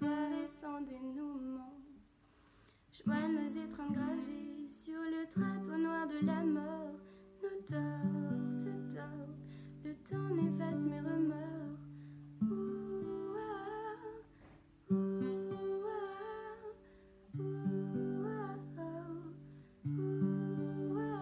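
Acoustic guitar picked in slow chords, with a woman's soft vocal melody sung over it; a brief pause about two seconds in, then the guitar and voice start again.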